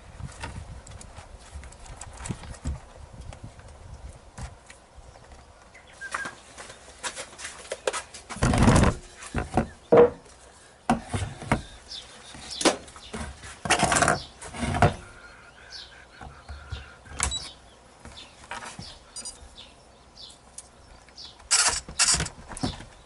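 Intermittent knocks, clatters and rustles from handling a foam radio-control model airplane and a radio transmitter on a wooden table, with a few louder knocks in the middle and near the end.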